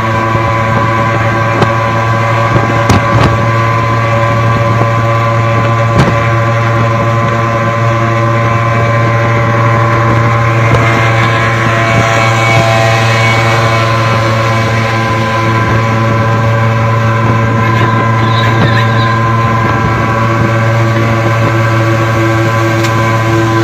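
Suzuki two-stroke pickup engines racing at steady revs: a loud, constant buzzing drone with wind rushing over the microphone.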